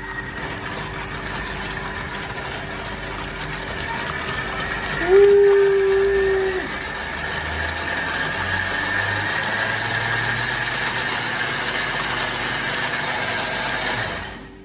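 Thermomix motor blending a hot sauce mixture, running steadily with a brief loud whine about five seconds in, then cutting off just before the end.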